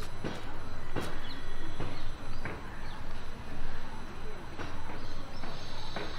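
Outdoor ambience of steady, distant road traffic rumble, with a few short clicks scattered through it.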